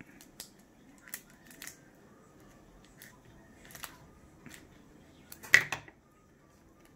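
Light clicks and crinkles of hands working a foil Pokémon booster pack and a pair of scissors, scattered every half second to second. About five and a half seconds in comes a louder clack, as the scissors are set down on the wooden table.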